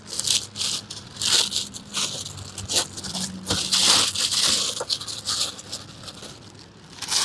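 Plastic packing crinkling and rustling in irregular bursts, with a few sharp clicks, as the packed equipment is handled and unwrapped.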